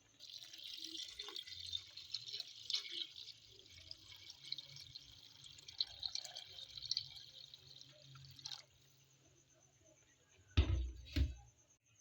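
Water pouring and splashing for about eight seconds, then cutting off suddenly, followed by two dull thumps near the end.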